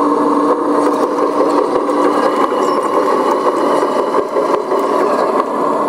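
Radio-controlled Liebherr 956 model hydraulic excavator running: a steady mechanical whir and hum of its motor and hydraulics as it tracks and moves its boom with a demolition grab.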